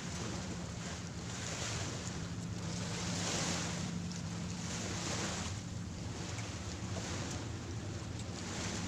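Surf washing onto a sandy beach, swelling and fading every couple of seconds, over a steady low hum.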